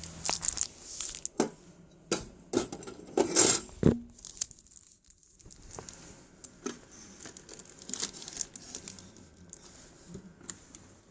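Handling noise: crinkling and rustling with scattered sharp knocks as an item is pushed and worked into a tight space.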